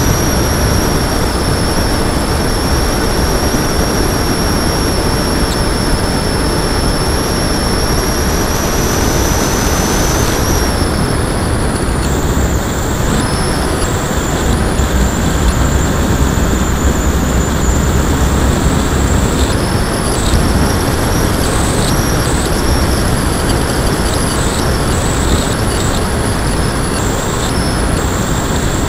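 Onboard sound of a Lanyu Raptor RC plane in flight: heavy wind rush over the camera microphone, with the thin high whine of its Turnigy D3536 brushless motor and ESC. About ten seconds in the whine drops in pitch, and from then on it cuts out and comes back several times as the throttle is cut and reapplied.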